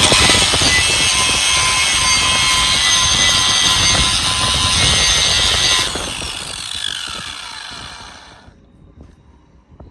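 Electric power tool running hard for about six seconds, working on nuts, then released and spinning down with a falling whine that fades over a couple of seconds. A few faint knocks follow near the end.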